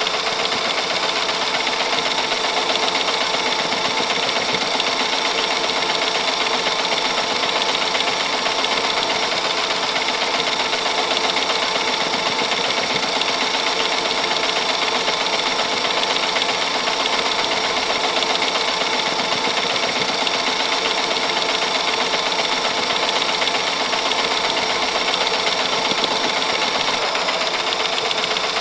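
Antique movie camera running, its film reel mechanism making a steady, fast, even clatter.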